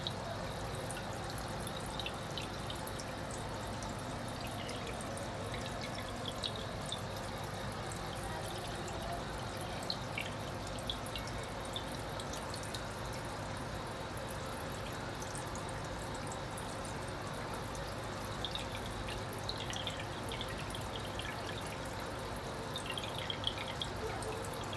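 Steady running water, with scattered clusters of light drips.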